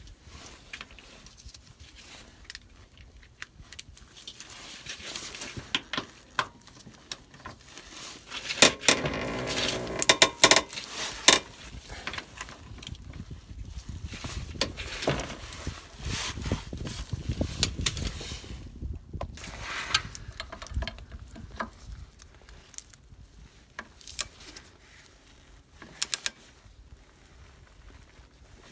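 Metal hand tools clinking and knocking on the bolts and brackets of a car's front lower suspension arm as it is bolted up. A dense run of loud clicking comes about nine to eleven seconds in, and a couple of sharp clicks near the end.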